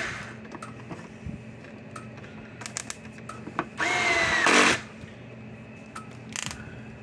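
Cordless drill/driver driving a screw into a fence charger's plastic case, a single short run about four seconds in: the motor whine quickly rises in pitch, holds for under a second and stops. A few light clicks of handling come before and after.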